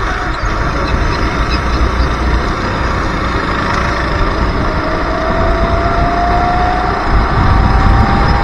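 Racing kart engine heard from onboard at speed, its pitch climbing slowly in the second half as the kart accelerates. Heavy wind buffeting on the camera microphone.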